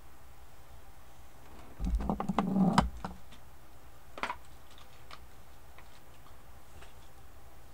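Scattered clicks of a computer keyboard and mouse. About two seconds in comes a louder low-pitched noise lasting about a second, with sharp clicks through it.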